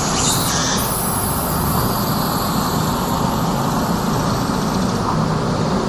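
Street ambience of steady road traffic noise, with a brighter hiss at the start that fades away about a second in.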